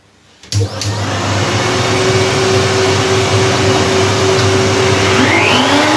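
Table-mounted router switched on about half a second in, its motor spinning up within a second and then running steadily with a round-over cutter fitted.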